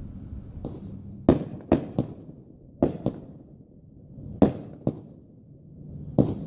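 Aerial consumer fireworks going off: about ten sharp bangs at irregular spacing, some in quick pairs. A faint hiss builds up just before a few of the bangs.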